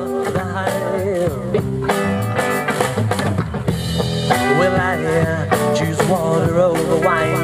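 Rock band music with a drum kit keeping a steady beat under a wavering melody line.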